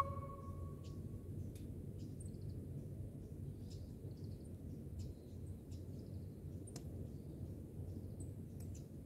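Low, steady outdoor background noise with faint, scattered high chirps and ticks; the last note of a chime fades out in the first second.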